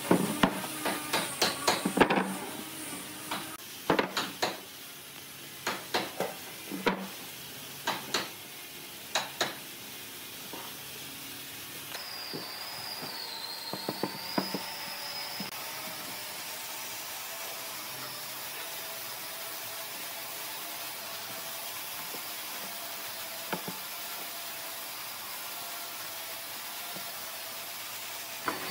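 Thick wooden tree-trunk slices knocking against each other and against a wooden workbench as they are slid and set down into place. A quick run of sharp wooden knocks fills about the first ten seconds. After that come only a few light taps over a steady background hum.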